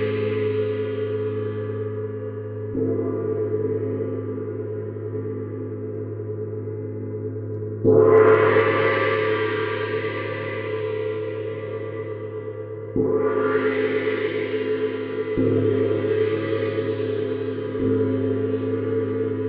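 Neptune gong struck with a soft felt mallet five times, the loudest stroke about eight seconds in, each stroke swelling the gong's continuous ringing and deep hum.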